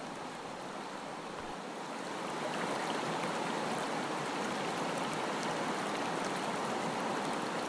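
Steady rushing of river water, growing louder about two seconds in.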